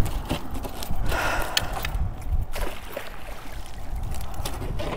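Water splashing and trickling as a landing net is dunked and swished over the side of a boat, with a few sharp knocks of handling.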